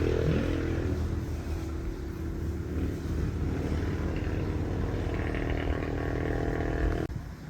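A steady engine-like hum with a low pitched drone, which cuts off abruptly about seven seconds in.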